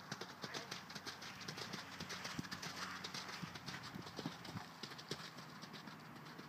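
Hoofbeats of a horse cantering over jumps on soft arena footing: a quick, uneven run of hoof strikes.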